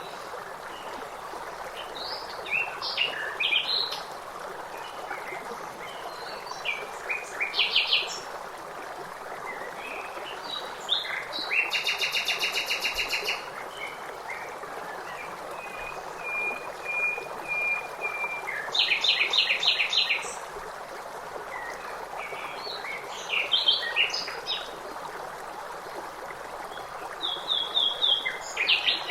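Several songbirds chirping and singing over the steady rush of flowing water. Short calls and phrases come and go throughout, with a fast, even trill lasting about a second and a half near the middle.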